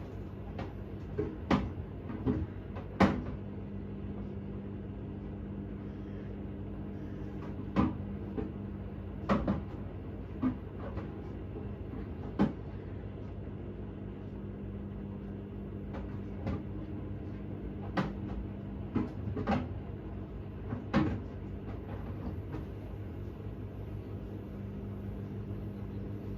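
Hoover H-Wash 600 washing machine running with a steady hum, broken by about a dozen irregular clunks and clicks, the loudest about three seconds in. The clunks are the sound of the load knocking in the turning drum, and they stop for the last few seconds.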